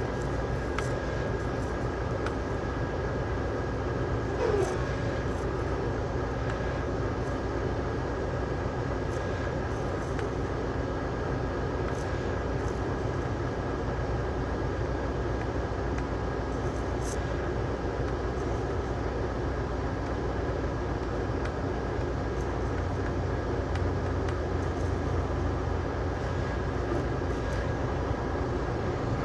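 Steady engine drone and road noise inside a moving tractor-trailer's cab, with a faint steady hum running through it.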